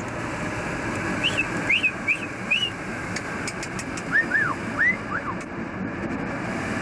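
Budgerigar chirping: a few short rising whistled chirps, then several falling ones about four seconds in, over a steady background hum. A few faint clicks come about three seconds in.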